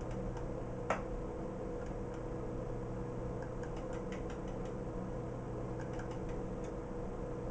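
Faint clicks of the Icom IC-720A's band-switching relays as the radio changes bands under computer control, one clear click about a second in and fainter ticks later, over a steady hum of the station equipment.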